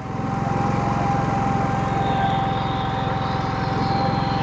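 GENMAX GM9000iED inverter generator's engine running steadily on propane with no load while it warms up, with a steady high whine over the engine hum. It gets louder right at the start and then holds steady.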